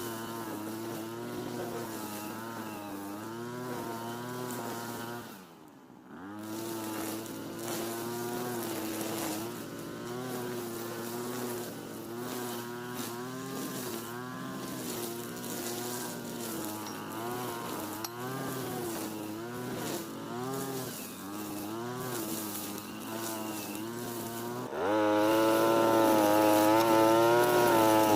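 Two-stroke brush cutter engine (Europa Hilt with a TB43 engine) running at high speed while cutting, its pitch wavering up and down as the blade takes load. About six seconds in it drops briefly toward idle and picks up again, and it runs louder near the end.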